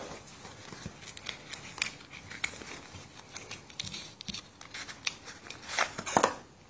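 Cellophane wrapper and cardboard box of a new Bicycle playing card deck being torn open and the deck pulled out: a run of irregular crinkles and small clicks, loudest in two rustles near the end.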